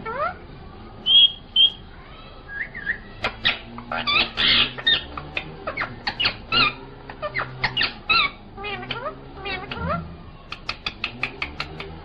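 Male Indian ringneck parakeet calling in a string of short, upward-sliding chirps and squawks, with two brief high whistles about a second in and a quick run of clicks near the end.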